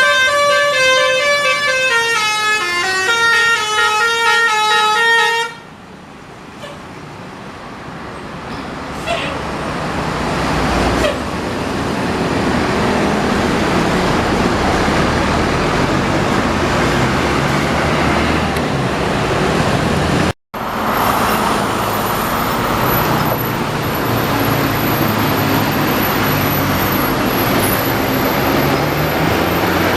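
Basuri telolet bus horn, a multi-tone horn playing a quick stepped tune for about five seconds, then stopping. Then bus engine and road noise grows louder over several seconds and holds steady, with a sudden brief dropout about two-thirds through.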